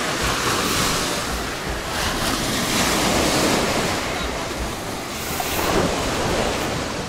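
Black Sea surf breaking on a pebble shore, a steady wash of water that swells and falls in surges every two to three seconds, with wind buffeting the microphone.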